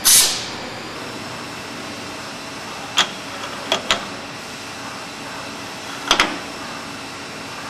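Metal clamping modules on a CNC machine's table being moved and set by hand: a short rushing hiss at the start, then sharp metallic clicks, one about three seconds in and two quick pairs later, over a steady machine-room hum.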